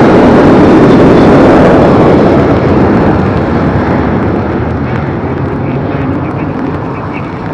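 Jet engine noise from a Boeing 737 passing low overhead and climbing away, loud at first and fading steadily as it recedes. The hiss in the upper range dies away about two and a half seconds in.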